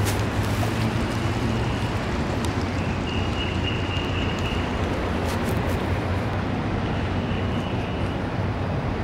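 Steady city traffic rumble with wind buffeting the microphone, and a faint high whistle that comes and goes.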